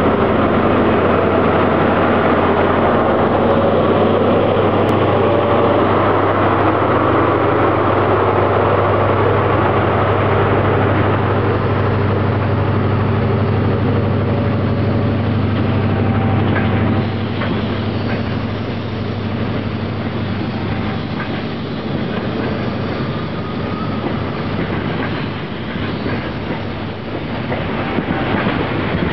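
Diesel engine of a Class 43 HST power car running hard as the train pulls away, a steady low drone. After about 17 s the engine note fades and the Mk3 coaches roll past with wheels clicking and clattering over the rail joints, getting faster.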